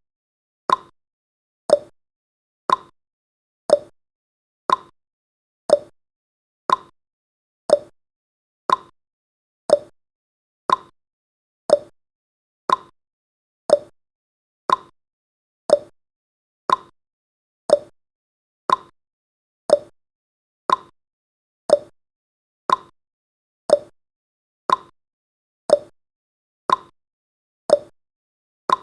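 Clock-style tick-tock sound effect counting the seconds of a countdown timer: one sharp click each second, alternating between a higher tick and a lower tock.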